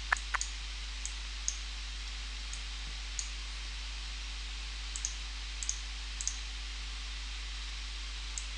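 Computer mouse clicking now and then, about a dozen sharp single clicks at uneven intervals, over a steady faint hiss and low electrical hum.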